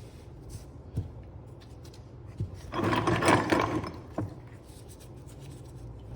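Workshop handling sounds: a light knock, then a rough scrape or rub lasting about a second and a half, then another knock.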